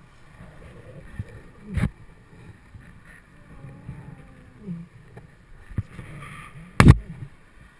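Rope swing in motion, heard from a helmet-mounted camera: low rumbling wind and rubbing noise, with two sharp knocks, one about two seconds in and a louder one near the end.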